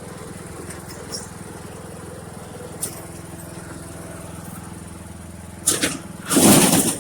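Riding lawn mower's small engine running steadily. Near the end come two loud noisy clatters, a short one and then a longer, louder one.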